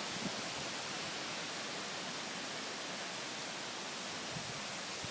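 Wind blowing leaves around, a steady rushing hiss with a couple of faint knocks.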